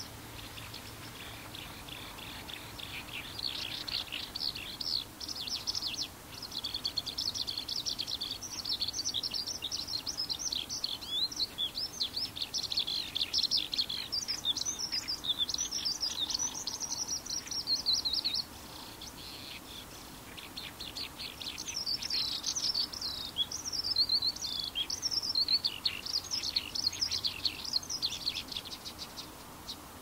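Eurasian skylark (Japanese race, Alauda arvensis japonica) singing: a long, rapid, unbroken run of high warbling and chirruping trills. The song breaks off for a few seconds about two-thirds of the way through, then resumes and stops shortly before the end.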